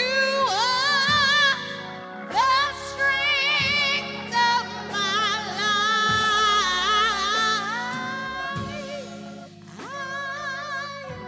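Woman singing a gospel worship song into a microphone, holding long notes with strong vibrato and breaking briefly between phrases, over a steady low instrumental accompaniment.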